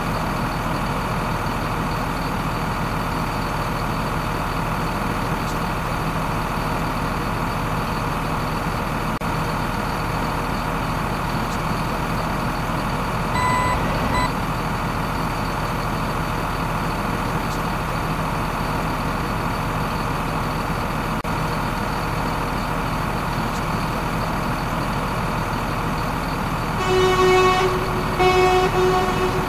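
Truck engine sound effect running steadily, laid over the toy truck's movements. A short beep comes about halfway through, and two loud horn honks near the end.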